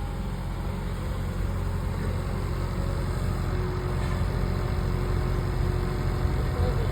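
Excavator engine running steadily with a low hum, growing gradually louder.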